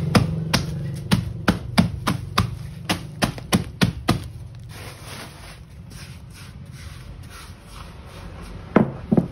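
Lumps of charcoal being pounded and crushed into fine particles: sharp repeated knocks about three a second that stop about four seconds in, followed by softer grinding and two more knocks near the end.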